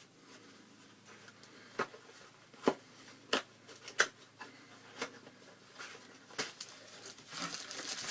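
Cardboard packaging of a keyboard being handled as the box is pushed out of its sleeve: faint scraping with a few scattered sharp taps and clicks, two of them louder.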